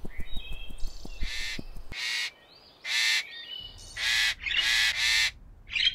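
Bird chirps and short whistles, then four loud, harsh squawk-like calls spaced about a second apart.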